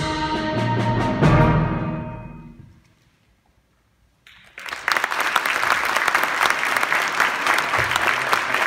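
Middle school concert band ending a piece on a loud final chord, with percussion strokes about a second in, ringing out and fading over the next two seconds. After about a second of silence, the audience breaks into steady applause.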